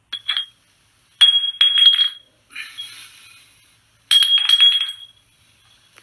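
Small hard objects clinking together in two bursts of quick ringing clinks, about a second in and again about four seconds in, with a soft rustle between them.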